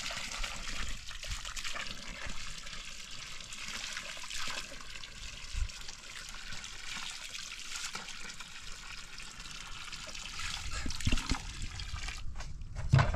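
Water trickling steadily, with a few knocks near the end.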